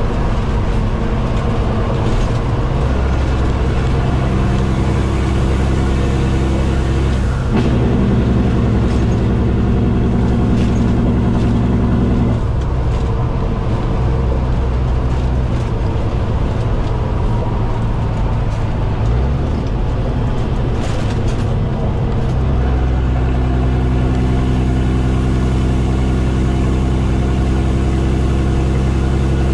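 Kenworth T800's Caterpillar C15 diesel engine droning steadily inside the cab at highway speed, its note stepping up or down a few times as the revs change.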